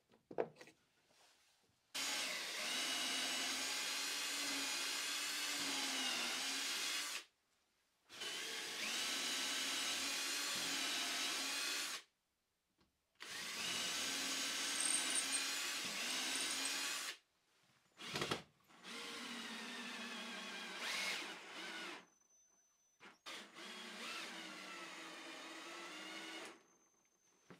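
Ryobi cordless drill boring holes into glued-up pine blocks. The motor runs with a steady whine in five separate runs of about three to five seconds each, with short silent breaks between them.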